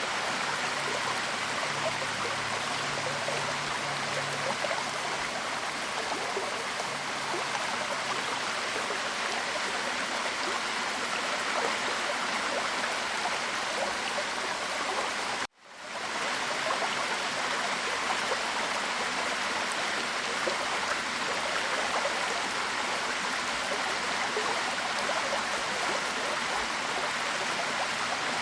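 Waterfall: a steady rush of falling water. About halfway through it drops out for a moment and fades straight back in.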